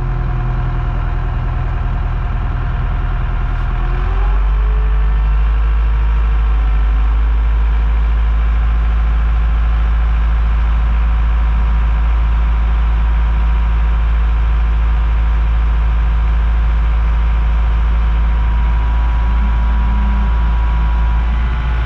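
Cat wheel loader's diesel engine running; it revs up about four seconds in and then runs steadily at the higher speed as the loader arms raise.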